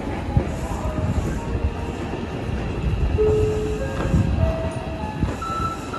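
A Hankyu 8000 series electric train standing at a station platform, with a steady rumble throughout. A few short steady tones at different pitches sound about three seconds in and again near the end.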